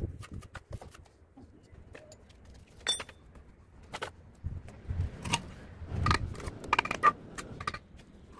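Bricklaying with a steel trowel and hollow clay bricks: scattered clicks, scrapes and knocks as mortar is worked and bricks are set and tapped into place, busier in the second half.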